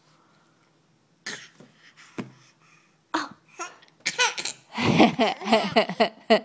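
A baby laughing: a few short breathy bursts, then from about four seconds in a quick run of laughs.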